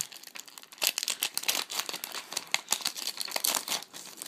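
Foil wrapper of a Pokémon trading-card booster pack crinkling and tearing as it is pulled open by hand, a dense run of crackles.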